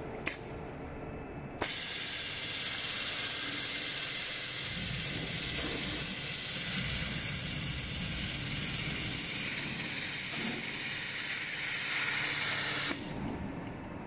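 Steady, loud hiss of air from an industrial edge-cutting sewing machine's pneumatic system as it runs. It starts suddenly about a second and a half in and cuts off near the end.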